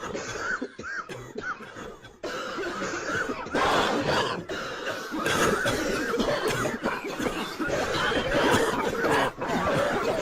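A crowd of people coughing over one another, thickening about two seconds in and again a second or so later.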